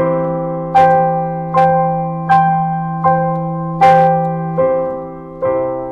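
Digital piano playing a C major chord in first inversion: a held low E in the bass while the right-hand chord is struck again and again, about every three quarters of a second. Near the end the bass moves to a lower note.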